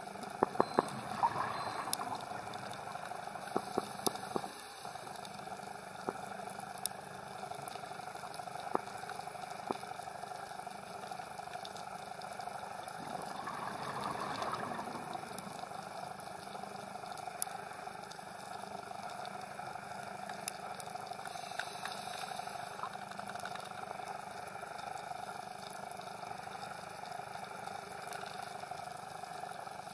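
Underwater reef ambience heard through a camera housing: a steady watery hiss with scattered sharp clicks, most of them in the first few seconds, and a swell of bubbling noise around the middle.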